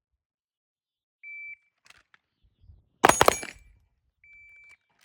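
Shot timer start beep, then about a second and a half later a rapid string of several pistol shots, the loudest sound here. A second beep follows about a second later.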